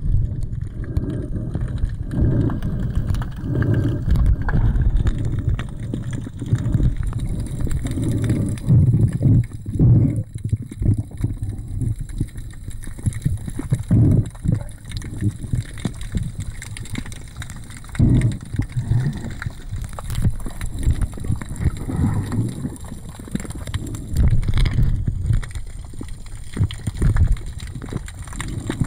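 Muffled underwater water noise picked up by a submerged camera: low rumbling and sloshing that swells and fades with the water's movement, with a few dull knocks.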